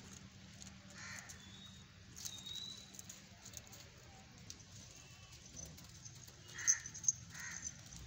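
A few short animal calls, one about a second in and two close together near the end, over a steady low hum, with a brief thin whistle a couple of seconds in.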